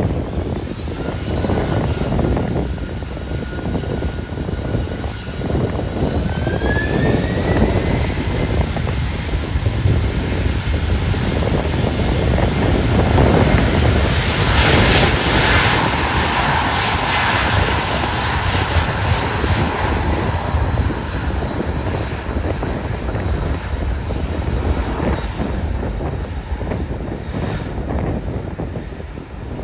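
Jet airliner engines running loud and close, with a steady whine that rises in pitch about six seconds in; the sound swells to its loudest about halfway and eases off. Wind buffets the microphone throughout.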